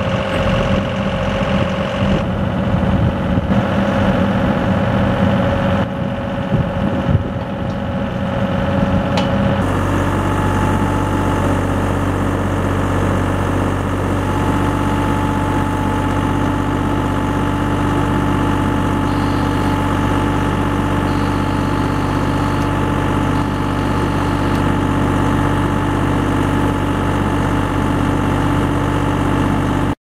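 Takeuchi compact excavator's diesel engine running, uneven as the machine works. About ten seconds in it changes to a steady, even hum of the engine and the hydraulic screw pile driver turning a helical pile.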